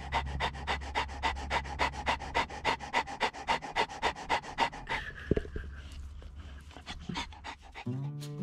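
A large dog panting fast and close up, about five quick breaths a second, stopping about five seconds in. Music starts near the end.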